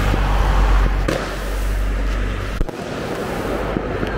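Ground-launched fireworks firing: a loud steady rushing with sharp cracks, easing off about two and a half seconds in, then a few scattered pops.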